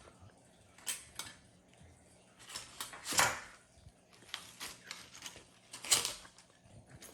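Metal hand tools clinking and clattering against one another as they are packed into a small tool pouch: a handful of separate knocks and rattles, the loudest about three seconds in and again about six seconds in.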